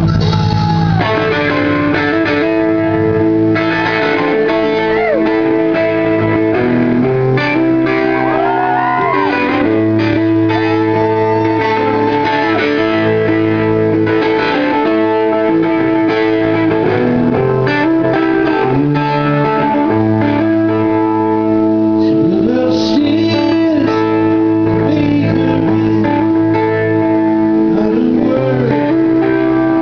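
Live blues-rock band playing, an electric guitar leading over bass and drums, with some notes sliding in pitch.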